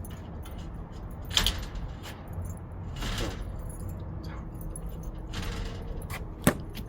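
Keys jingling and small metallic clicks as a key is worked in a screen door's profile lock cylinder, with a sharp click near the end. The lock barely turns: the cylinder is going bad.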